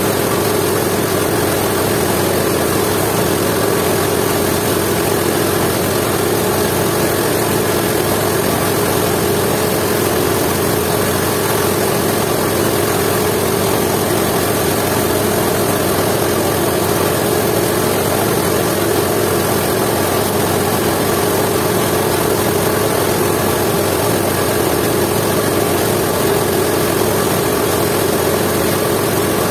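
Jiangdong 8 hp single-cylinder diesel engine running steadily at a constant speed, belt-driving a coffee grinding mill.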